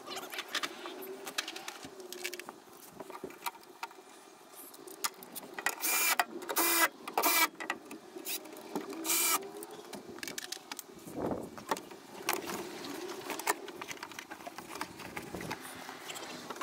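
Cordless electric ratchet whirring in several short bursts, a cluster about six to seven and a half seconds in and one more near nine seconds, as it turns hydraulic hose fittings. Quieter clunks and rustling of handling in between.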